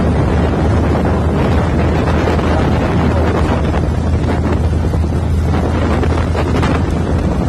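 Wind buffeting the microphone: a loud, steady low rumble with a rushing hiss over it.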